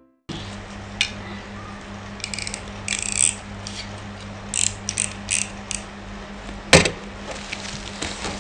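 Plastic and bubble-wrap packaging crinkling in short bursts as parcels are handled, with one sharp knock about seven seconds in, over a low steady hum.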